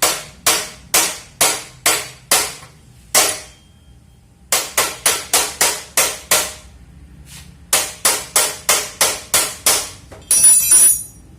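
Hammer blows on a part of a cup-sealer drink press, knocking it flat. The strikes come about two a second in three runs with short pauses between, followed near the end by a brief harsher, ringing noise.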